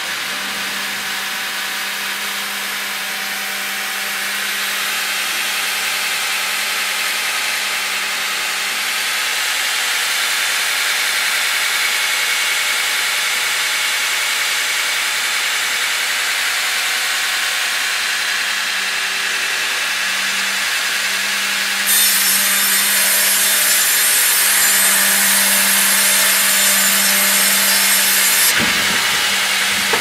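FIMAKSAN Fİ.120/HDG vertical band saw cutting a log carried on its Fİ.130/HKD.3 carriage: a steady motor hum under the hiss of the blade through the wood, slowly growing louder. Near the end a sharper high hiss joins for about six seconds and cuts off suddenly.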